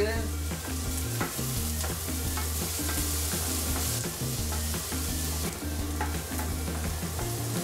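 Chopped onions sizzling in oil in a frying pan, stirred with a spoon that knocks and scrapes against the pan now and then. A low hum runs underneath.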